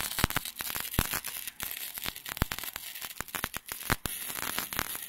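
Gasless flux-cored MIG welding arc from a Taiwan Power MIG200i inverter welder, crackling and spitting irregularly as the wire feeds into the weld, with sharper pops scattered through it.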